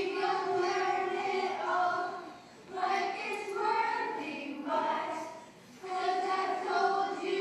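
A group of children singing in unison, held notes in short phrases with brief breaks between them, three phrases in all.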